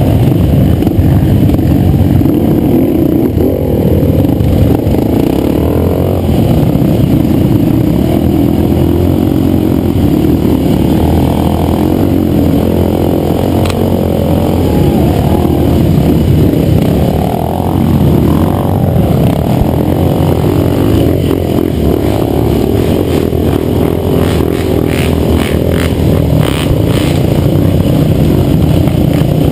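Quad bike (ATV) engine running under load on a muddy trail, its pitch rising and falling with the throttle, with dirt bike engines close by. A run of knocks and rattles comes near the end.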